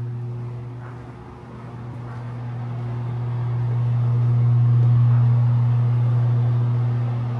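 Bathroom exhaust fan running with a steady low electric hum. The hum dips about a second in, then swells to its loudest about five seconds in before easing slightly.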